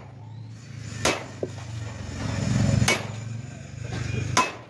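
Hand hammer striking a steel punch held against an aluminium sheet: three sharp metallic taps, a second and a half to two seconds apart, as a decorative pattern is punched into the sheet. A low hum swells and fades underneath around the middle.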